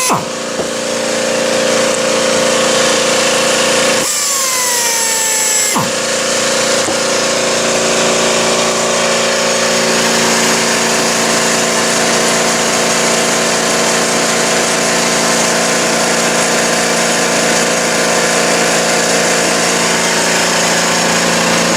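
Small air compressor running loudly and steadily, supplying air to a pneumatic torque wrench. About four seconds in the running briefly drops away with a falling whine, then picks up again.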